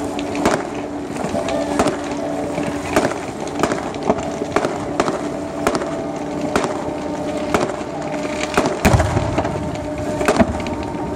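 Fireworks going off in a rapid, irregular series of sharp bangs and cracks, with a deeper boom about nine seconds in. Steady held tones sound underneath.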